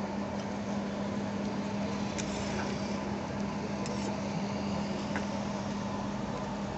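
Steady rushing hum of a street stall's stove burner under a pan of noodles simmering, with a few light clicks as a metal spatula is worked in the pan.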